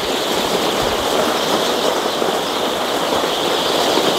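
A large flock of young chicks in a brooding house, hundreds of them cheeping at once in a dense, steady chorus.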